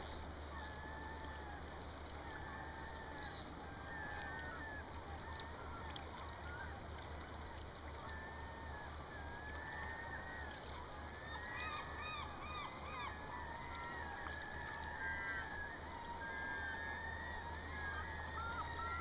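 Birds calling again and again in short wavering notes, with runs of quick repeated calls about two-thirds of the way through and again at the end, over a faint steady hiss of flowing river water.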